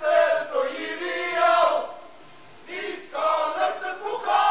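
A group of men chanting or singing together in unison, in two loud phrases of about two seconds each with a short pause between: a team's celebration chant.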